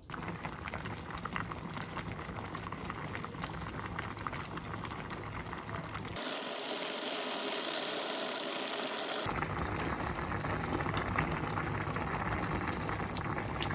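A pot of budae jjigae (Korean army stew) boiling, with steady bubbling and crackle. About six seconds in the sound turns hissier and loses its low rumble, then returns to the fuller bubbling about three seconds later.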